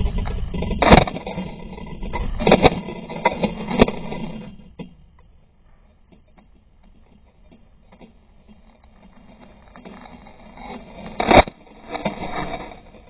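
Slowed-down, deep-pitched sound from a quadcopter's onboard camera as the quadcopter crashes. Rotor and wind whirr is broken by several heavy thumps of impacts in the first four seconds, then stops about five seconds in. A single loud thump comes a little after eleven seconds as the quadcopter comes down in the grass.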